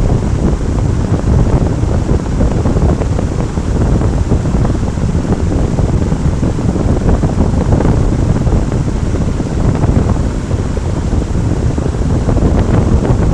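Steady roar of Kutralam's Main Falls (Peraruvi), a large waterfall pouring onto rock, heavy in the low rumble and unbroken throughout.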